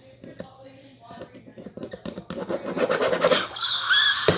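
Pen scratching and scribbling on paper in quick rasping strokes, growing louder from about halfway, with the harshest, loudest scratching near the end.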